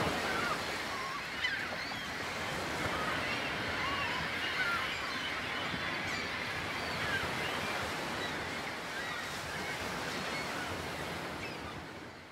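Ocean surf washing on a beach, an even rushing noise, with many short birds' calls over it; it fades out near the end.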